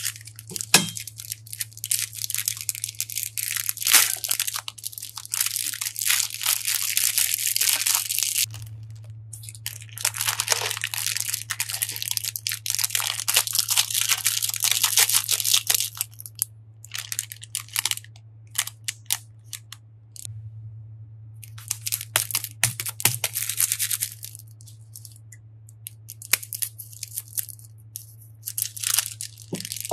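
Plastic piping bags full of water beads crinkling in the hand and being snipped open with scissors, with the beads pouring out and spilling onto a glass dish of more beads. The crackling comes in long stretches with short pauses between them.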